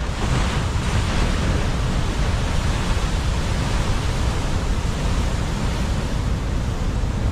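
Loud, steady noise of heavy surf breaking on the shore, with wind rumbling on the microphone.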